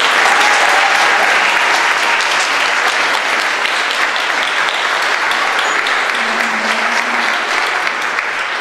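Audience applauding: dense, steady clapping from a large crowd that eases slightly near the end.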